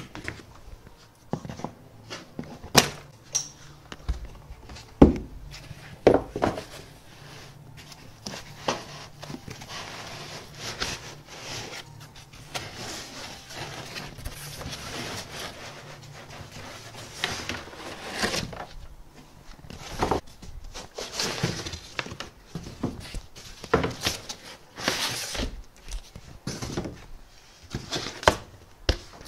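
Packaging and parts being handled while a boxed 3D printer is unpacked. Irregular knocks and thumps as pieces are moved and set down, the loudest a few seconds in, with a stretch of rustling and scraping in the middle.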